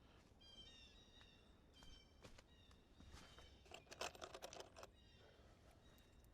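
Faint birdsong: short, high chirps repeated throughout, with a brief run of rapid clicking about four seconds in.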